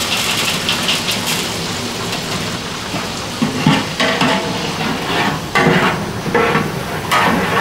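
Whole spices (black peppercorns, cumin, cinnamon, cloves, cardamom) are dropped into hot oil and ghee in a large metal pot and sizzle. From about halfway, a ladle stirs them, scraping the pot in repeated strokes.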